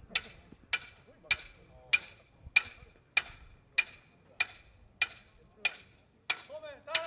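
A regular series of sharp knocks, about twelve, evenly spaced a little over half a second apart, each with a brief ring; a voice calls out near the end.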